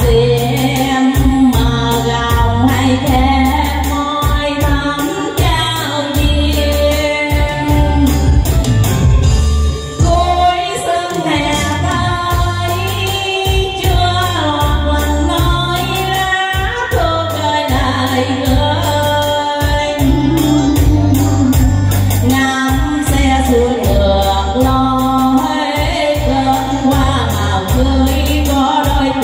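A woman singing a slow Vietnamese song into a handheld microphone over backing music with a steady bass beat and regular hi-hat-like ticks.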